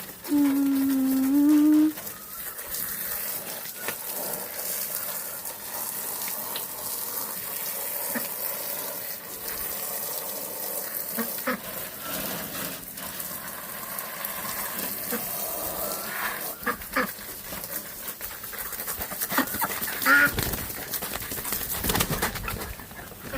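Poultry calling: a long held call in the first two seconds, then scattered short calls and clicks over a steady hiss, with a louder call about twenty seconds in.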